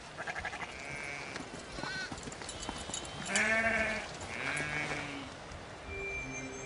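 Sheep bleating, about four wavering calls one after another, the loudest about halfway through.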